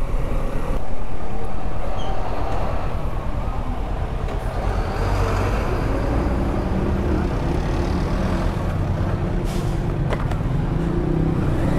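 Kawasaki Versys 650 motorcycle's parallel-twin engine running steadily under way, with road and wind noise.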